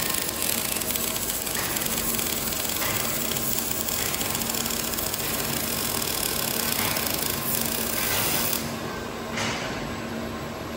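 Robotic MIG welding arc crackling steadily as the torch runs along a seam, then stopping about eight and a half seconds in, leaving a quieter steady hum.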